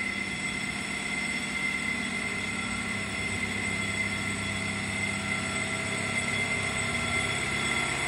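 Steady hum of running machinery, with several constant whining tones that hold level throughout.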